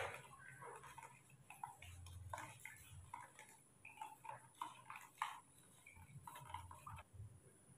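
A metal spoon stirring milk formula in a clear plastic cup, making faint, irregular clicks and scrapes against the cup's sides.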